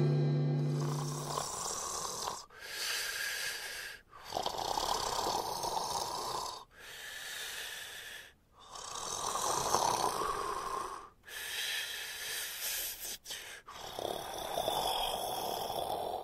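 A sleeping dog snoring under a blanket, a steady series of breaths each a second or two long with short pauses between them.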